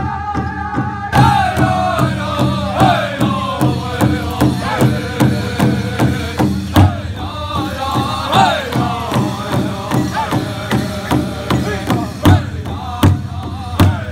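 Powwow drum group: several singers strike one large hide-covered drum together in a steady beat while singing in unison. A held sung note opens, and the drumbeat starts about a second in, with a few heavier accented strokes later on.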